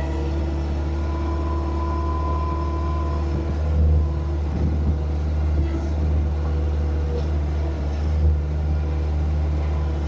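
Skid steer engine running steadily, with a few clunks of metal about four and eight seconds in.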